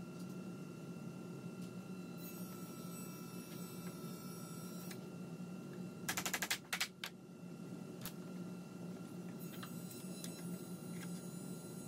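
About six seconds in, a quick flurry of mallet blows drives a freshly glued wooden upright down into its joint. Two more taps follow straight after, then a single knock about a second later. A steady low hum runs in the background.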